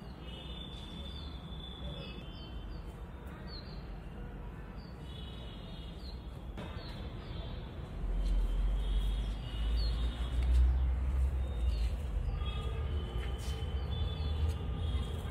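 Small birds chirping: short high chirps and thin whistled notes repeating throughout. A low rumble on the microphone comes in about halfway through and grows louder.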